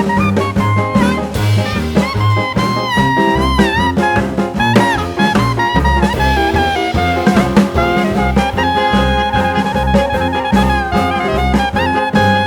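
Background jazz music in a swing style: a horn melody with vibrato over a steady pulsing bass line and drums.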